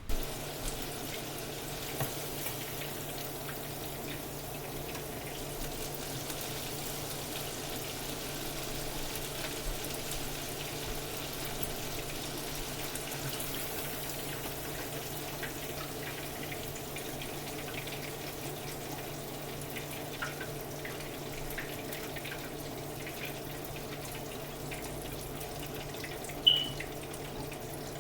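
Chicken pieces cooking: a steady hiss over a low hum, with a few faint pops. There is one sharp click near the end.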